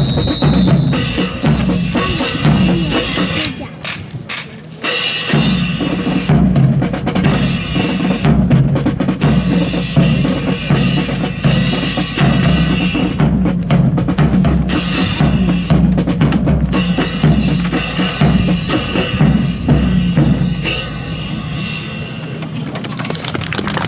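Military band playing a march with a steady bass-drum and snare-drum beat, about two beats a second. The music drops away briefly about four seconds in, then carries on.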